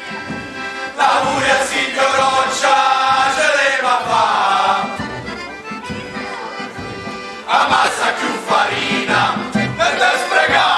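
A group of men singing a traditional folk song in chorus, accompanied by an accordion. The voices come in about a second in, drop out for a couple of seconds in the middle while the accordion carries on, and come back near the end.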